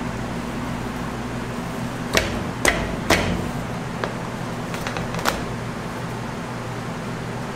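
A metal tray knocks against a steel chocolate-cutting frame as it is shifted and lifted. Three sharp clanks come about two to three seconds in, then a few lighter taps, over a steady low hum.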